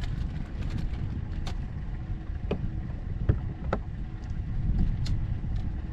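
Wind buffeting the microphone on a fishing boat, a steady low rumble, with a faint steady hum and several sharp clicks and knocks scattered through it, the loudest about three seconds in.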